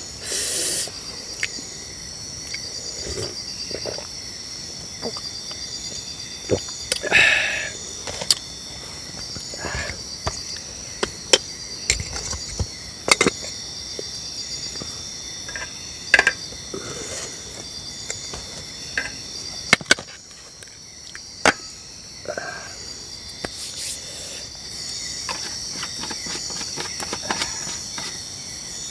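Night chorus of crickets and other insects, a steady high pulsing trill, with scattered sharp clinks and knocks of camp cookware being handled, including a lid going onto a pot.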